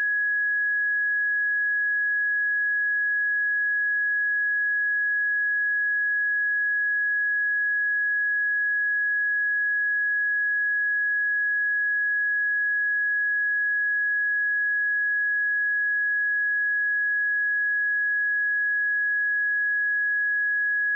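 Pure 1673 Hz sine test tone, one steady unwavering pitch at constant level.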